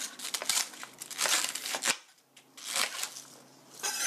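Chef's knife cutting cabbage leaves on a cutting board: a run of irregular, crisp crunching cuts through the leaves, with the blade knocking on the board.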